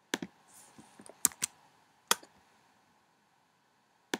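A handful of sharp, separate clicks from a computer keyboard and mouse, the last two close together near the end.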